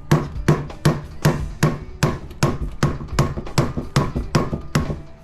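Steady, rhythmic hammer blows, about two and a half a second, hammering at an electric motor's stator to free the stuck copper windings; the blows stop near the end.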